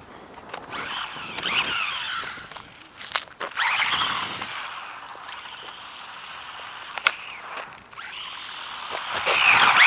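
Electric motor of a Dromida DB418 RC buggy whining in spurts, rising and falling in pitch as it speeds up and slows, over a haze of tyre noise. A few sharp knocks come from the buggy bouncing over the ground, and the strongest burst of speed is near the end.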